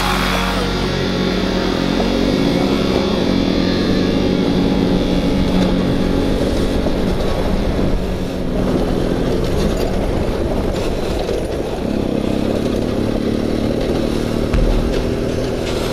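BMW F800GS parallel-twin engine running under way as the motorcycle rides along a rough gravel track, with steady wind and road noise.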